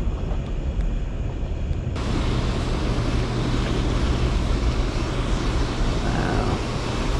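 Steady low rumble with a rushing noise, like wind buffeting the microphone over open water. The rushing turns louder and brighter about two seconds in.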